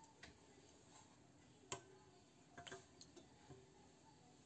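Near silence with a few faint, irregular clicks: the rim of a glass jug knocking against a stainless steel bowl as egg whites are poured in.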